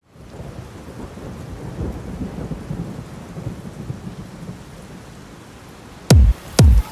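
Thunder rumbling low and uneven over rain, easing off toward the end. About six seconds in, two heavy electronic kick-drum beats half a second apart start a dance track and are the loudest sounds.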